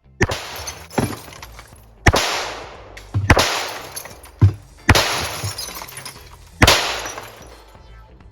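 Five shots from a Rock Island Armory M1911A1 .45 ACP pistol, about one and a half to two seconds apart, with glass bottles breaking as they are hit.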